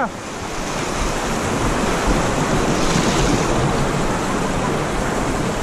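River rapids: fast whitewater rushing and churning right around the microphone.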